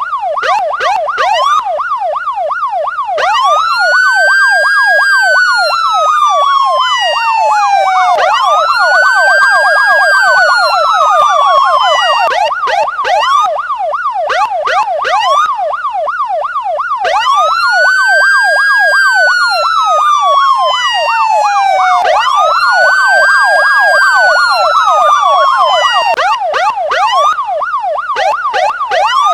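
Electronic police siren, a fast yelp that runs continuously. A slower wail rises and falls over it twice in a row, then yelps alone for a few seconds, then wails twice more.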